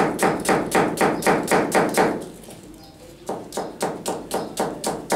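Chef's knife slicing an onion, the blade knocking on a plastic cutting board in a fast, even rhythm of about five strokes a second. The chopping stops for about a second midway, then resumes more slowly.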